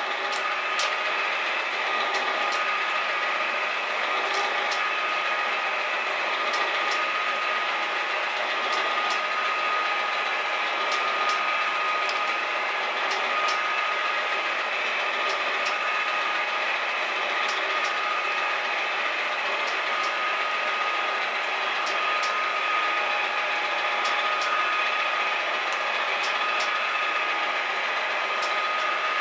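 Metal shaper running through its cutting strokes across a steel roller, a steady machine hum with a pair of sharp clicks about every two seconds as the ram cycles.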